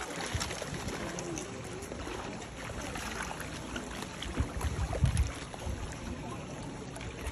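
Pool water sloshing and splashing as a dolphin swims at the surface and noses a floating ball, with a few low thuds about five seconds in.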